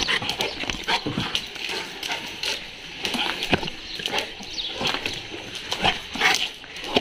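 A pit bull–type dog moving about close to the microphone as it jumps up at the person holding the camera, with irregular clicks and knocks.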